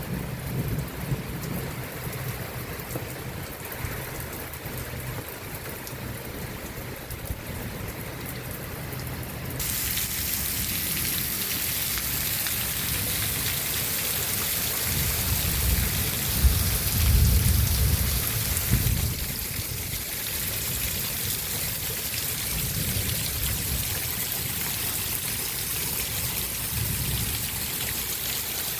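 Heavy rain falling, a steady hiss that turns louder and brighter about a third of the way through. A low rumble swells and fades near the middle.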